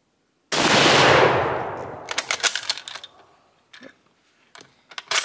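A single shot from a Type 99 Arisaka bolt-action rifle about half a second in, its report dying away over about a second and a half. It is followed by a quick run of metallic clicks and clacks, then a few more near the end, as the bolt is worked to eject the spent case and chamber the next round.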